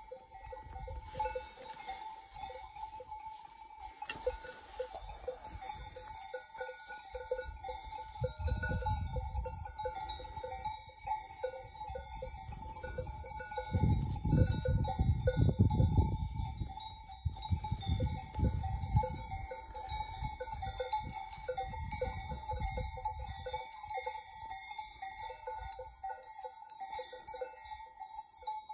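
Livestock bells on a grazing flock of sheep and goats clinking and jangling irregularly and without a break. A low rumble of wind on the microphone comes in gusts from about eight seconds in and is strongest around the middle.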